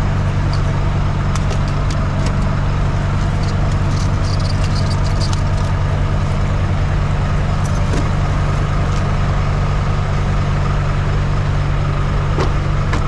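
Heavy truck's diesel engine idling steadily, with a few scattered light clicks and knocks over it.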